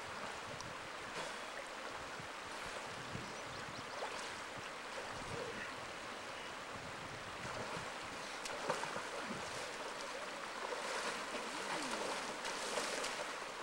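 Shallow creek running over rocks, a steady rush of water. In the second half, splashing from a person wading through the shallow water.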